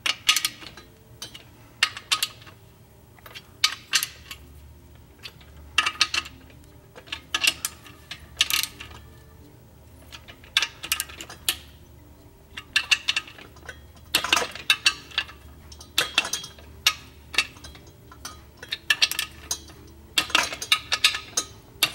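Ratchet clicks and metallic clinks from a torque wrench and socket tightening the main bearing cap bolts on a 1.3L Suzuki Samurai engine block. The bolts are being snugged up in a criss-cross pattern before final torque. The clicks come in short irregular bursts every second or two.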